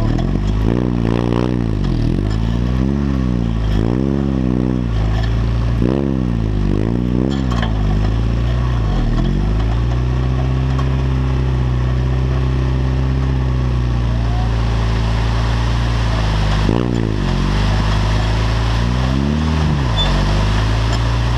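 Home-built off-road buggy's engine running under load as it is driven along a rough trail, revving up and down about once a second for the first nine seconds. It then holds a steady pitch, with two more quick revs near the end.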